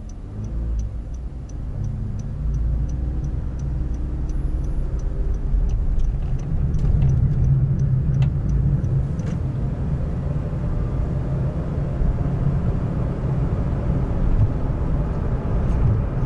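Interior of a Honda N-BOX kei car on the move: low engine and road rumble that grows louder as the car gathers speed, with the engine's pitch rising. A light, even ticking about three times a second runs over the first few seconds and dies away around six seconds in.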